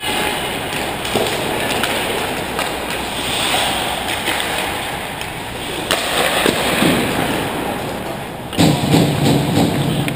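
Ice hockey play heard from the goal net: a steady noisy wash of skates on the ice with scattered sharp clacks of sticks and puck. Near the end it gets louder and rougher for a second or two.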